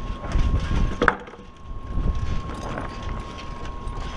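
Split firewood being tossed from a truck bed onto a loose pile, the pieces knocking together, with one sharp wooden knock about a second in.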